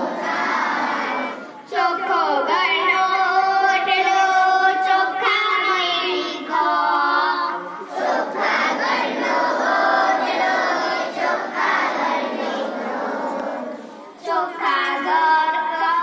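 Group of schoolgirls singing a Gujarati cleanliness song (swachhata geet) together, in sung phrases with brief breaks between them.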